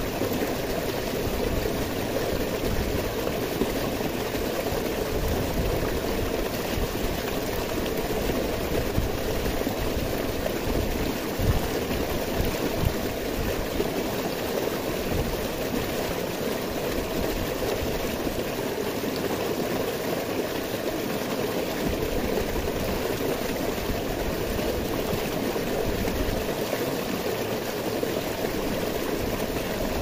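Shallow stream rushing and splashing over boulders in a small cascade, a steady noise of running water.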